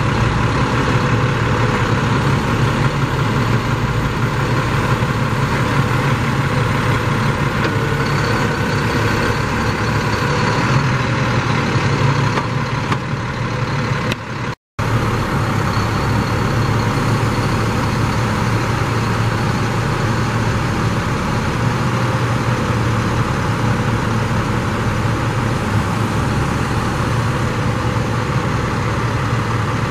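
International 4300 truck's diesel engine running steadily while powering the hydraulics that work the outrigger leg and knuckleboom. The sound cuts out for an instant about halfway through.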